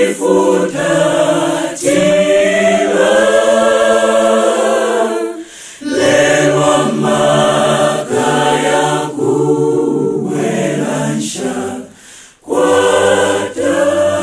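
A choir singing a cappella, with no instruments. The phrases are held and broken by two short pauses, about six and about twelve seconds in.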